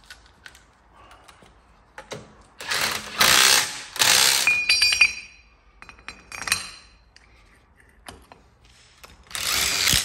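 Cordless power tool run in short bursts, three runs close together between about two and five seconds in, a short one after six seconds and another near the end, undoing the nuts on a car wheel spacer, with small metal clicks and clinks of the nuts in between.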